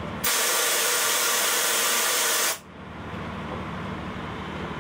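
Compressed-air brake valve in a railway coach wall panel, worked by hand: a loud, even hiss of escaping air starts suddenly, runs for about two seconds and cuts off. A steady low hum continues underneath.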